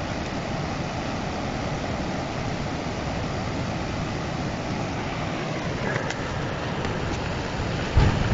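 Swollen, fast-flowing river rushing in a steady roar. A short low thump comes about eight seconds in.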